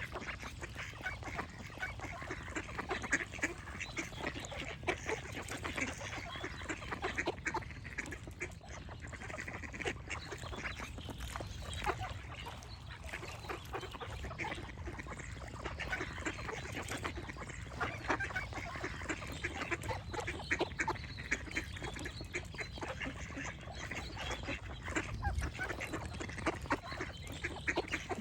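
A flock of ducks calling without pause, many short quacks overlapping one another.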